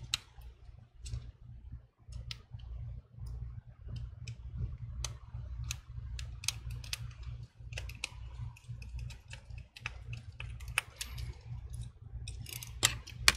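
Light irregular clicks and ticks of a precision screwdriver and small parts being handled on an iPhone display assembly, over a low steady hum. A louder clatter starts right at the end.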